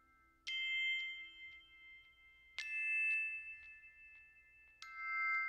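Background music: a bell-like chime struck three times, about two seconds apart, each note ringing on and slowly fading.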